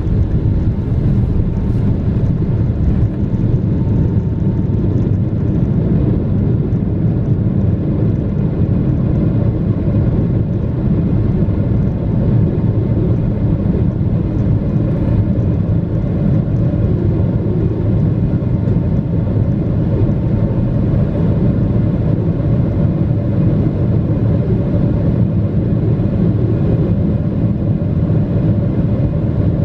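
Cabin noise inside a Boeing 777-300ER: a steady, loud, deep rumble from its GE90 engines and the airflow around the fuselage, with a faint high steady tone above it.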